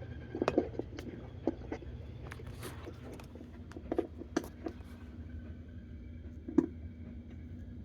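Scattered light clicks and knocks, about a dozen, over a steady low hum, the loudest knock near the end.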